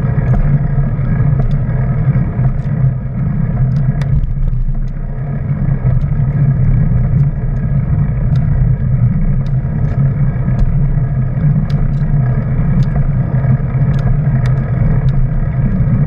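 Roller-ski wheels rolling fast on asphalt, a steady low rumble close to the microphone, with repeated sharp clicks of ski-pole tips striking the pavement about once or twice a second.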